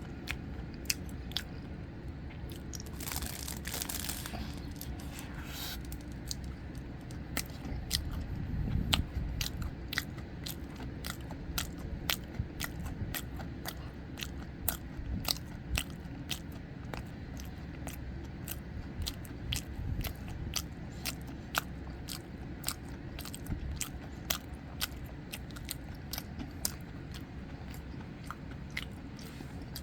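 Close-miked chewing of soboro red bean bread: small crumbly crunches and many sharp mouth clicks, with a brief hissing rustle about three seconds in.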